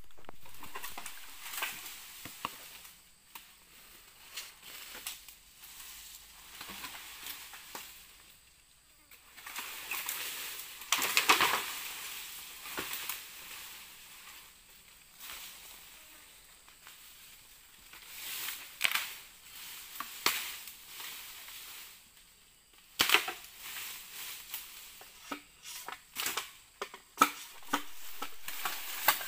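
Dry bamboo stalks and leaf litter rustling, crackling and snapping, with a loud rush of crackling about eleven seconds in and a quick run of sharp cracks near the end.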